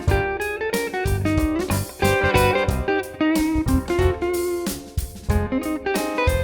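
Background music: a guitar-led instrumental with plucked and strummed notes over a steady beat.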